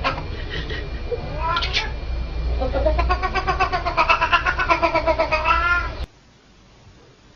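A cat yowling: a short rising call, then a long wavering yowl of about three seconds that cuts off suddenly.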